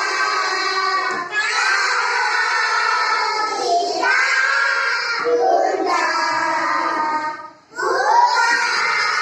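A child's high voice singing an Indonesian children's song in a few bending phrases, with short breaks between lines about a second in, four seconds in and near seven and a half seconds.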